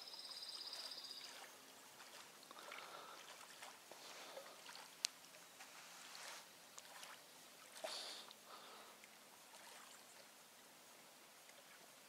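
Faint lapping of small waves on a sandy lake shore. A short high trill comes in the first second and a half, and a few soft clicks are scattered through.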